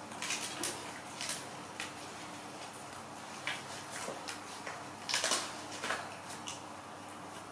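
Baby monkeys eating raw leafy greens: irregular short crisp crunches and leaf rustles, busiest about five seconds in, over a faint steady hum.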